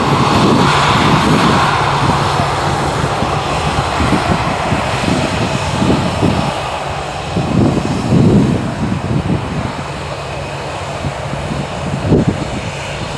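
Jet noise from a Boeing 747-400 freighter's four engines as it comes in to land, loudest at the start and slowly fading. Wind gusts buffet the microphone throughout.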